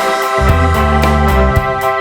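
Background music: sustained organ-like keyboard chords over a steady bass line.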